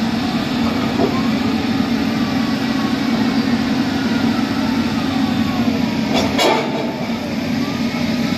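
Heavy construction machinery running steadily with a loud low hum. A brief clatter comes about six seconds in.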